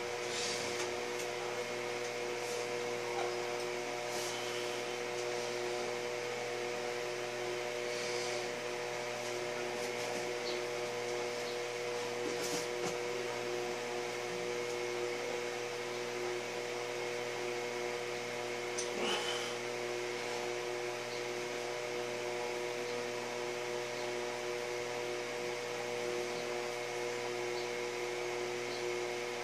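Steady machine hum, several fixed tones over an even hiss, with a few faint knocks now and then.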